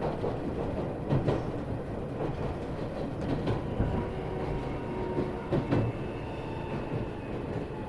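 Iyotetsu 3000 series electric train running, heard from inside the motor car: a steady rumble of wheels on rail with a few clacks over rail joints, about a second in and twice near the six-second mark, and faint steady whining tones in the second half.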